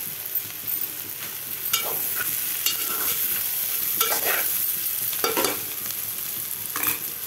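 Ivy gourd and peanut fry sizzling in oil in an open pan while a spatula stirs it, scraping through the food and along the pan every second or so.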